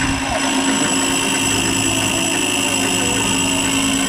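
Metal lathe running steadily as it skims a motorcycle rear sprocket hub, cutting it down so the sprocket can sit further inboard; a steady hum with a high whine over it.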